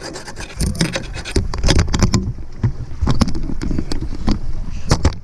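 Irregular clicks and knocks of gear or equipment being handled aboard a boat, over a low rumble.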